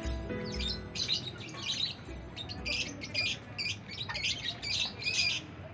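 A flock of lovebirds calling: many short, high chirps and squawks in quick runs, busiest in the second half.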